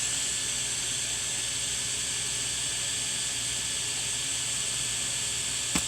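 Newly powered-up home-server PC running, its cooling fans giving a steady airy hiss over a faint low hum. A single short click comes near the end.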